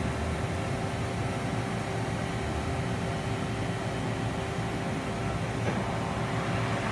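Mori Seiki NH4000 DCG horizontal machining center running, a steady machine hum with a constant tone, while its spindle holding a twist drill moves through the work area.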